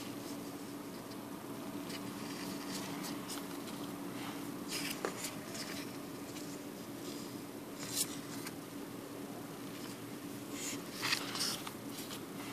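Romanian polymer banknotes handled on a wooden table: short plastic-like rustles and crinkles come a few times as the notes are moved and swapped, over a faint steady hum.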